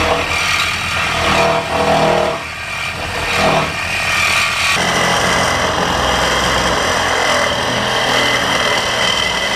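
Loud motor running, steady with low hum lines, changing in character about five seconds in.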